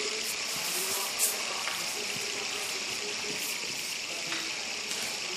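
A fidget spinner loaded with three die-cast toy cars spinning freely, giving a steady whirring hiss.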